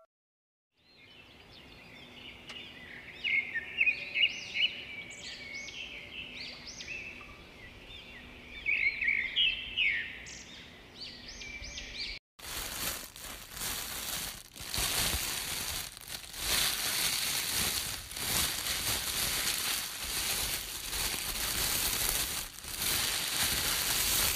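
Songbirds chirping, many short overlapping calls. About halfway through it cuts to a dense, crackling, rustling noise made of many small crackles.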